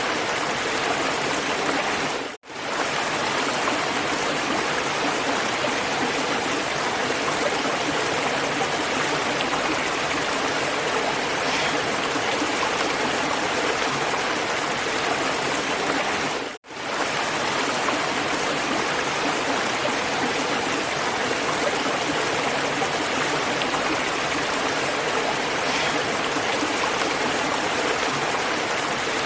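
Running water rushing steadily, like a stream, as an even hiss across the range. It cuts out for an instant twice, about two and a half seconds in and again about sixteen and a half seconds in, then picks straight back up.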